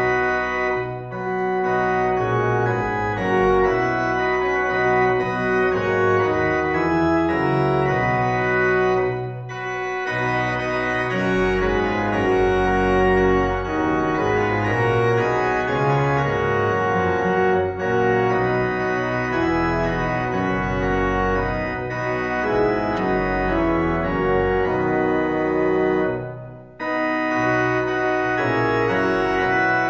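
Church organ playing sustained chords, pausing briefly between phrases a few times.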